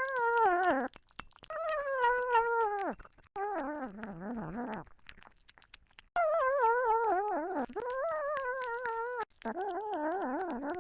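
Ginger kitten eating wet food close to a microphone. It makes a series of drawn-out, wavering, mewing hums that slide down in pitch, over wet clicking chewing sounds.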